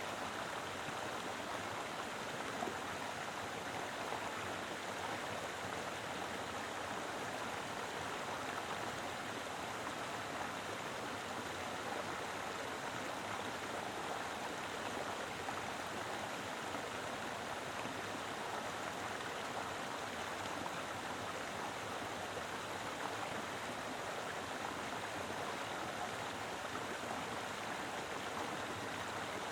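Mountain river flowing steadily: an even rush of water with a light gurgle.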